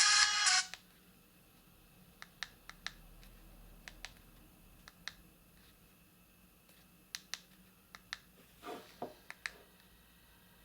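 A Maxcom MM462BB phone's ringtone cuts off abruptly less than a second in. Scattered sharp clicks follow, its keypad buttons being pressed to step through the ringtone menu.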